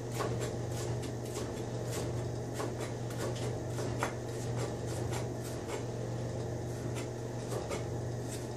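Chef's knife cutting celery into julienne on a plastic cutting board: a steady run of knife taps against the board, about three or four a second, over a constant low hum.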